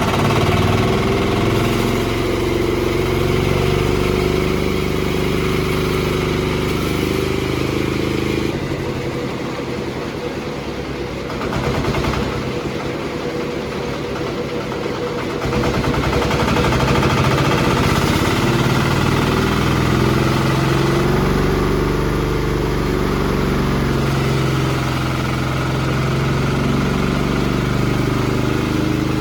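Horizontal band sawmill running with a steady, loud machine hum. The sound drops and roughens for several seconds in the middle, then returns to full level.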